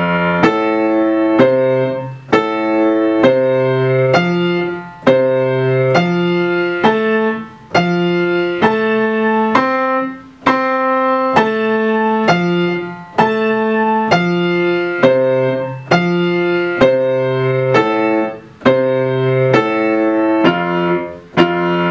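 Upright piano playing the F major tonic triad arpeggio exercise with both hands together: broken-chord notes in an even, steady rhythm, with a held note near the end.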